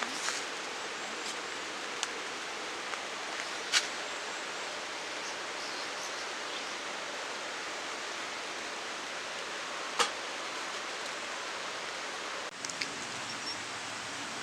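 Wood campfire burning: a steady hiss broken by a few sharp pops, the loudest about four seconds and about ten seconds in.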